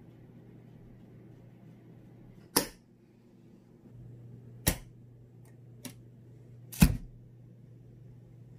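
Sharp clicks and clacks of a swing-top glass jar being shut, its glass lid and metal wire bail clasp snapping closed. There are three loud clicks about two seconds apart, a fainter one between the last two, and a faint low hum underneath.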